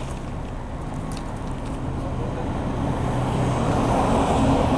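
A motor vehicle's engine going by on a road, a low hum that grows steadily louder and is loudest near the end.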